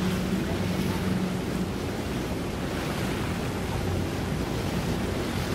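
Steady wind and water noise with the low hum of a boat motor, which fades over the first couple of seconds.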